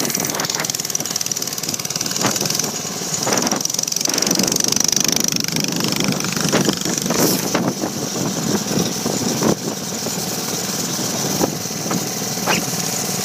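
Mini bike engine running steadily while riding over dirt, with a few sharp knocks scattered through it.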